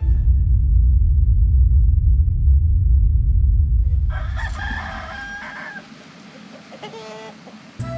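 A loud, deep rumble with no higher sound fills the first half, then fades. About four seconds in, a rooster crows once, a pitched call lasting about a second and a half.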